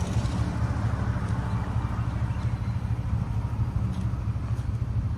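Ford F-150's 5.0L Coyote V8 idling steadily, its exhaust running through a Borla XR-1 Sportsman muffler with the factory resonator kept in place: an even, low rumble with no revving.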